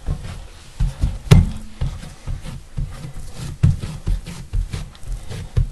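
Hands patting and pressing soft sourdough biscuit dough flat on a plastic cutting board: a quick string of soft thumps, two or three a second. There is one sharper knock about a second and a half in.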